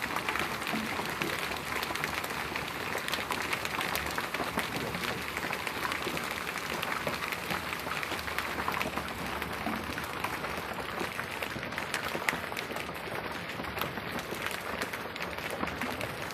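Hailstones falling and hitting the ground: a dense, even patter of countless small impacts.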